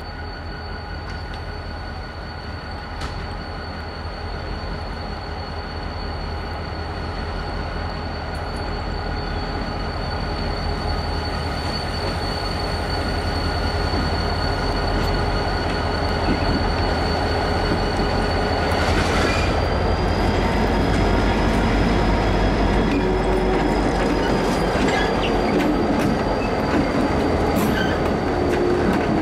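EMD GP30 diesel locomotives with 16-cylinder 567 engines rumbling as they approach at low speed on a curve and pass close by, getting louder as they near. A steady high squeal runs over the engine sound, typical of wheel flanges on a curve, with a brief burst of noise about two-thirds of the way through.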